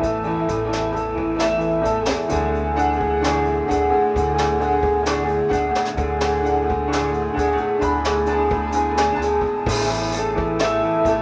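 Band music: guitar over a drum beat and a low bass line that changes note every second or so.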